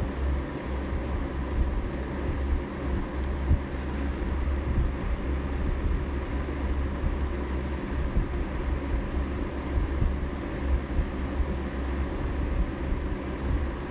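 Steady low rumble with a faint constant hum above it, wavering in level throughout.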